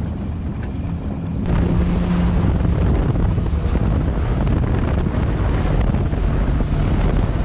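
Yamaha FX SHO Cruiser personal watercraft under way: its supercharged 1.8-litre four-stroke engine running with a steady drone, growing louder about a second and a half in. Water rush and wind buffeting the microphone are heard over it.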